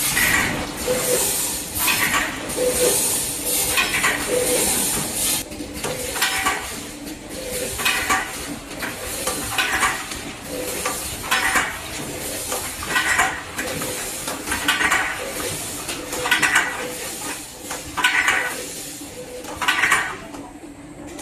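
Automatic container filling and capping machine running. Its rotary table indexes with repeating bursts of metallic clatter, about one every second and a half.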